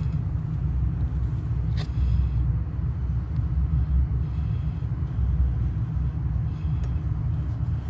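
Steady low rumble of car engines idling nearby, with one sharp click about two seconds in.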